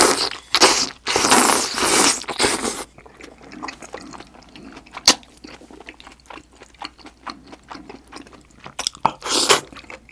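Close-miked mouth sounds of eating spicy beef-intestine hot pot with noodles: loud wet slurps in the first three seconds and again near the end, with quieter chewing and small clicks between them.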